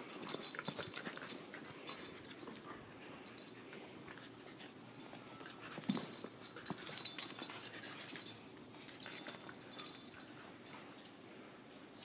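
Puppies play-fighting at close range: scuffling, with spurts of high-pitched whimpering and yipping that come and go irregularly, and a sharp knock about six seconds in.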